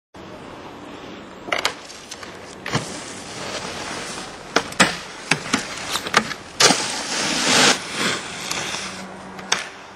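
Snowboard hitting and sliding along terrain-park rails and boxes: a series of sharp clacks, with a longer scraping hiss of the board across snow or the box about seven seconds in.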